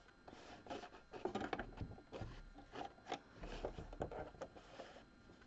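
Hands sliding fabric and a cord of t-shirt yarn over a sewing machine's metal bed: soft, irregular rubbing and rustling with scattered small taps.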